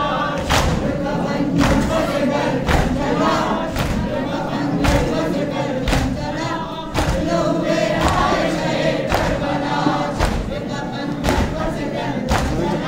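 A crowd of male mourners singing a noha together in unison, with the massed thud of hands striking chests in matam about once a second, keeping the beat.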